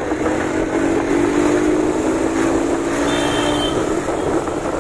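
Motorcycle engines running in a group ride, with wind and road noise; one engine's tone falls slowly in pitch over the first four seconds as it eases off. A brief high tone sounds about three seconds in.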